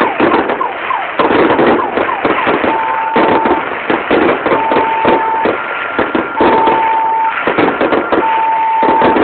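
Aerial fireworks display: a dense run of bangs and crackling bursts, with a few whistles gliding in pitch near the start. From about a third of the way in, a two-tone electronic alarm sounds over it, switching between a lower and a higher note about once a second.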